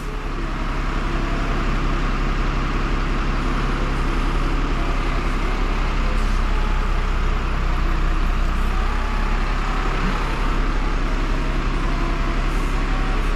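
Truck engine running steadily to drive its hydraulic crane, picking up over the first couple of seconds as the boom is worked.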